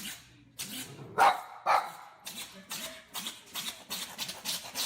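Animal sneezing: two short, sharp sneezes about half a second apart a little after a second in, then a run of quieter short sharp sounds.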